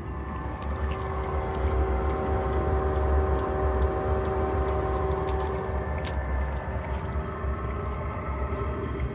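Eberspacher BN4 gasoline heater running at full output: a steady hum of its blower over a low rumble, with faint scattered ticks on top, swelling slightly over the first few seconds.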